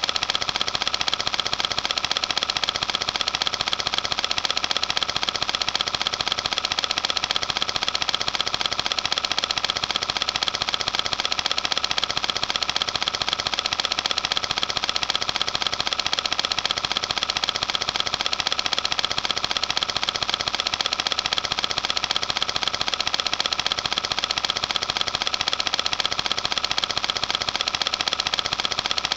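Cine film projector running: a steady, rapid mechanical clatter from the film advance.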